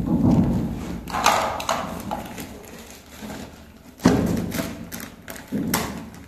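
Dull thumps and knocks from handling, the sharpest about four seconds in, with crackly rustling of a plastic packet as a small wiring accessory is unwrapped.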